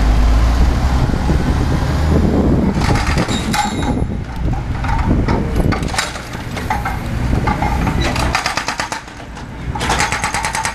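Hydraulic breaker on an excavator hammering the road surface in rapid, evenly spaced blows. The blows come in runs from about three seconds in, with the heaviest run near the end.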